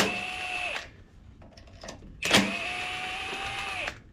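Bauer 20V cordless drill spinning a 5/16-inch deep-well socket in two runs, each a steady motor whine: a short run at the start and a longer one of about a second and a half from about two seconds in. It is backing the nuts off the carburetor mounting studs.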